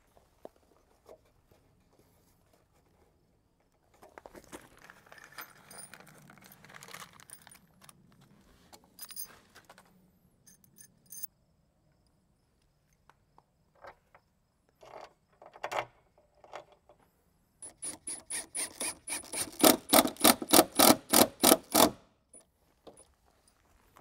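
Long steel screws jangling and clinking in the hand, then a few clicks. Near the end a power driver runs a long screw through the door hinge into the jamb in a quick, loud run of about five strokes a second, starting with a high motor whine.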